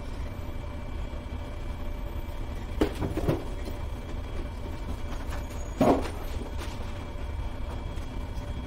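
Knocks and bumps from handling something on a wall: two light knocks about three seconds in and a louder thump just before six seconds, over a steady low room hum.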